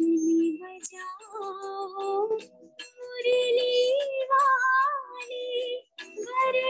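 Music for a Kathak dance, with a woman singing a melodic line of held, wavering notes. The sound is choppy, cutting out briefly several times, as happens over a video call.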